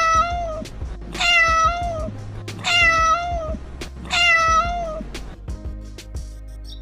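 Domestic cat meowing four times in a row, each meow a clear pitched call under a second long, about a second and a half apart, then stopping for the last couple of seconds. Background music plays underneath.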